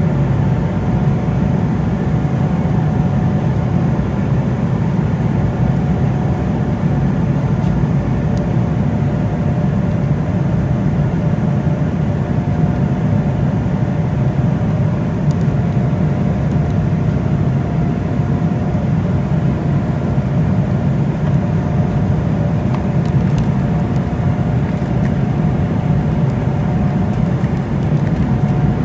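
Cabin noise of an Embraer E190 airliner: the steady drone of its turbofan engines and airflow, deep and even, with a few faint steady whining tones above it.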